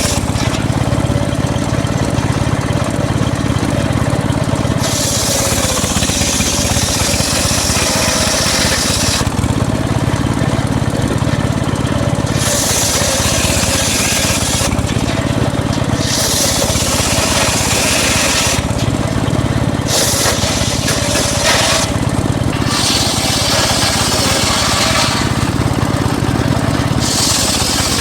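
Engine-driven home-built circular saw running steadily while its blade cuts teak wood in several passes, each cut adding a high hissing noise of a few seconds over the engine's steady hum.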